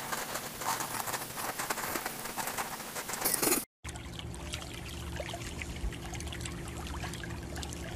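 A cat digging and scratching in a litter tray, the litter granules rattling and scattering in a dense run of small clicks. It cuts off suddenly a little over three seconds in, and a steady low hum with a few faint ticks follows.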